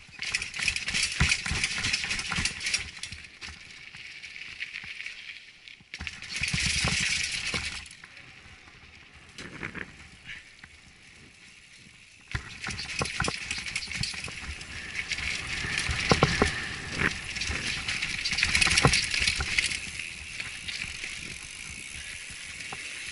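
Mountain bike ridden over cobbled steps and a dirt trail: the bike rattling with many sharp knocks from bumps over a steady rough tyre and rushing noise. The sound changes suddenly a few times, and goes quieter for a few seconds in the middle.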